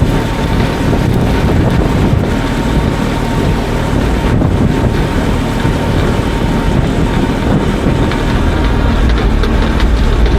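Steady low rumble of a running vehicle with wind noise on the microphone.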